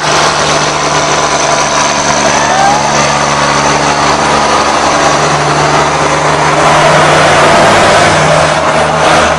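Diesel engines of two tractors, a Swaraj 855 and a Sonalika, running hard under full load as they pull against each other in a tug-of-war; a loud, steady drone that swells slightly near the end.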